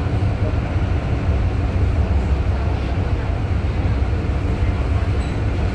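A steady low rumble with a rushing hiss above it, heard inside the cabin of a RapidKL MRT Kajang Line train (Siemens Inspiro) running at speed.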